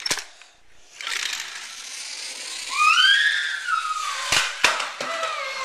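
A child's high squeal that rises and falls over a rushing hiss, then two sharp knocks in quick succession, like toy cars crashing on a hardwood floor.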